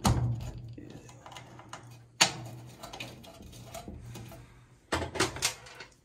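Plastic washing-machine water inlet valve clicking and knocking against the sheet-metal cabinet as it is pushed into place by hand: a sharp click at the start, another about two seconds in, and a quick run of clicks about five seconds in, over a faint low hum.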